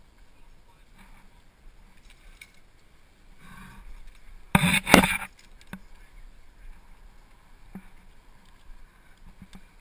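A climber moving on a rock face: faint scuffs and taps, and about halfway through a brief, loud scraping rush of noise in two quick pulses.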